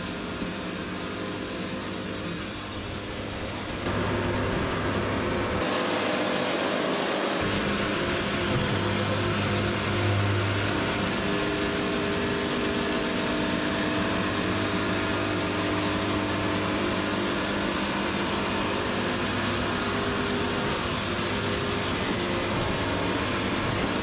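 Wood-Mizer LT70 bandsaw sawmill running steadily, its engine and hydraulics humming as the cant is turned and set down on the bed. The hum gets louder about four seconds in.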